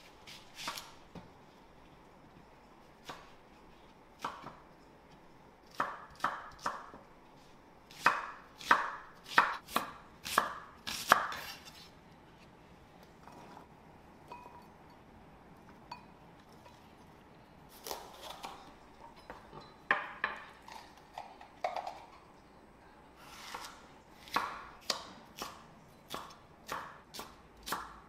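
Kitchen knife chopping on a cutting board in irregular runs of sharp knocks, with a pause of a few seconds in the middle.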